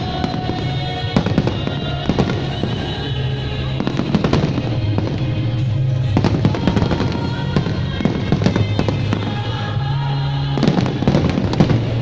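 Aerial fireworks shells bursting and crackling again and again over loud music, with a dense cluster of bursts near the end.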